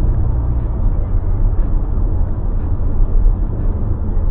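Car driving, heard from inside the cabin: a steady deep rumble of engine and road noise.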